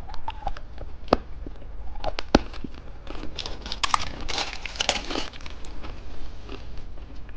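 Plastic candy wrapper crinkling and tearing as it is handled and opened, with scattered sharp crackles and a denser stretch of crinkling around the middle.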